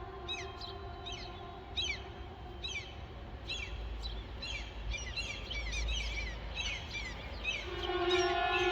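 Small birds chirping with short, repeated downward-sweeping calls over a low background rumble, in a pause of a civil-defence air-raid siren being tested. The siren's steady wail dies away at the start and starts up again near the end.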